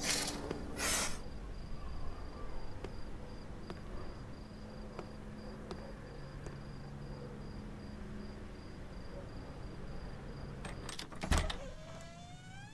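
Night ambience of a cricket chirping in a steady, even rhythm over a low hum. It opens with two short rushes of noise, and a little before the end a sudden loud bang is followed by a rising creak.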